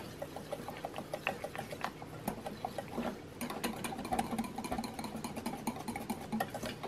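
Wire whisk beating warm ganache in a glass bowl: a quick, steady rhythm of light clicks and scraping as the wires strike the glass, several strokes a second.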